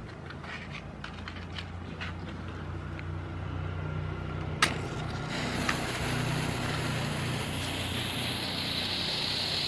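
A match is struck on its box about halfway through with a sharp scratch, then a firework fuse fizzes as it burns, the hiss growing louder toward the end. A steady low rumble runs underneath.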